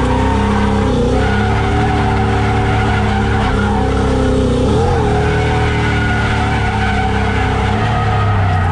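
SN95 Ford Mustang drift car's engine running hard with tyres squealing as the car slides sideways through a drift, heard from inside the cabin. The engine note holds fairly steady with small wavers in pitch.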